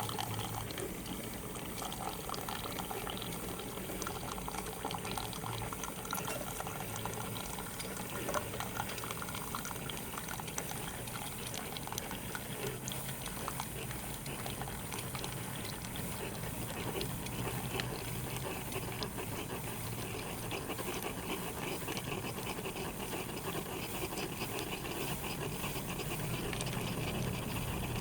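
Farberware single-serve K-cup coffee maker brewing: hot coffee streams and spurts into the mug while a low machine hum comes and goes.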